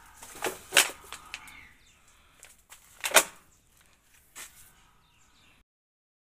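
Guava tree leaves and twigs rustling and crackling as a hand pushes into the branches, with sharp snaps about a second in and again about three seconds in. The sound cuts off abruptly near the end.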